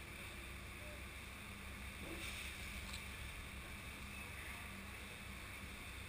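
Kawasaki W650 air-cooled parallel-twin motorcycle engine running steadily on the move, a low rumble under a hiss of wind and road noise.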